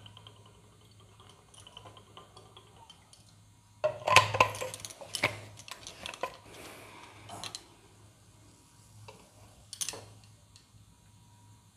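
Faint trickle of oil being poured into a kadai, then about four seconds in a few seconds of clattering knocks and clinks of pans and kitchen things on the stove, with one more knock near the ten-second mark.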